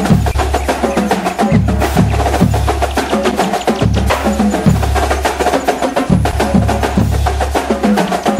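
Background music with a steady beat: deep bass notes under dense, sharp clicking percussion.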